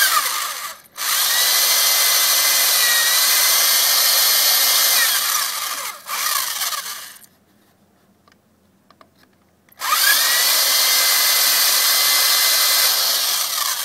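Corded electric drill boring holes through a plywood saw handle: a brief blip, then two long runs of several seconds each with a quiet pause between. In each run the motor's whine rises as it spins up and falls away as it stops.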